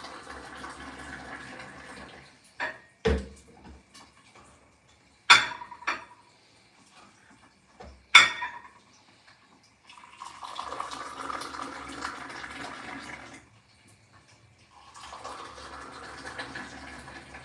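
Tea poured in a long stream from a metal teapot held high into small tea glasses: three pours of a few seconds each, with several sharp clinks of glassware and the pot between the first and second pour.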